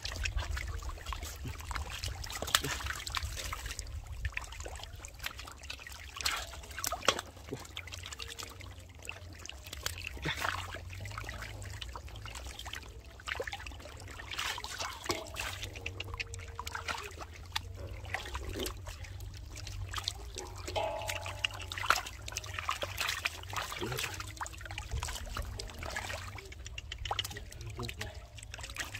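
Shallow floodwater trickling and splashing, with irregular sharp splashes throughout.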